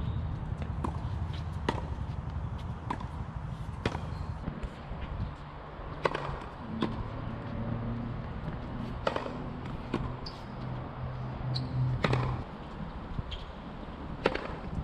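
Tennis ball struck by a racket and bouncing on a hard court: sharp, separate pops at uneven intervals, the loudest near the end, over a steady low hum.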